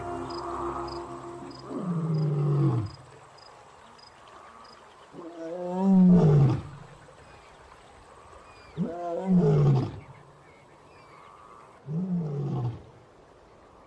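A lion roaring: four deep roars a few seconds apart, each falling in pitch, the second the loudest.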